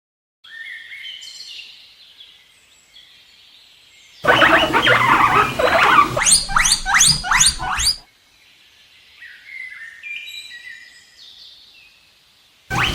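Guinea pig wheeking: a loud, rapid run of rising squeals for about four seconds in the middle, starting and stopping abruptly. Before and after it come fainter, high, short chirping notes.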